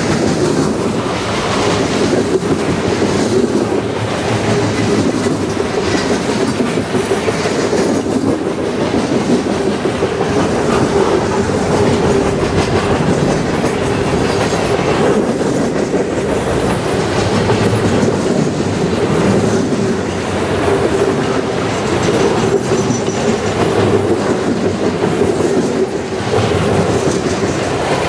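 Cars of a CN mixed-freight (manifest) train rolling past at speed, the wheels clicking steadily over the rail, with a steady ringing note underneath.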